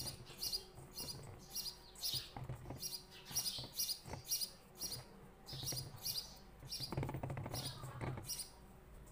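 A small bird chirping over and over, short high chirps about three a second with a few brief pauses, over a faint low hum and a few soft knocks.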